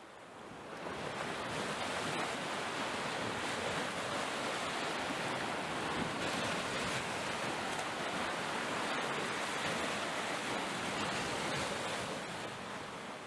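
Ocean ambience sound effect: a steady, even rush of water noise without distinct wave swells, fading in over the first second and fading out near the end.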